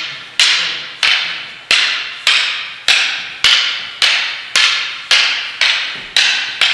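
Wooden bata fighting sticks clacking together over and over in a strike-and-parry drill: about a dozen sharp clacks, coming slightly faster towards the end, each ringing out in a large hall.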